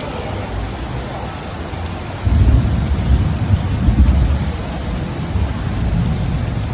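Heavy rain falling steadily, with a loud deep rumble that starts suddenly about two seconds in and fades over the next few seconds.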